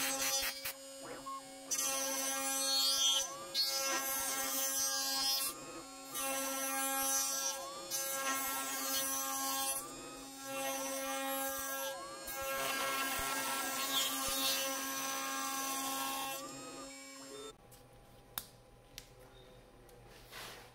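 CNC router spindle whining at a steady pitch while its bit cuts yew wood, the cutting noise coming and going in passes of a few seconds. About seventeen seconds in the spindle stops, leaving a few light ticks.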